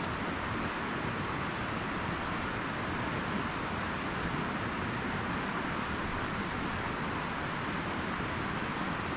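A fast-flowing river rushing steadily, an even, unbroken hiss of water.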